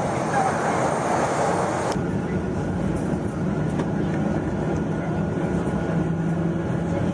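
Wind buffeting the microphone for about two seconds, then an abrupt cut to the steady engine noise of a Boeing 737-800 heard from inside the cabin as it taxis onto the runway, with a low steady hum.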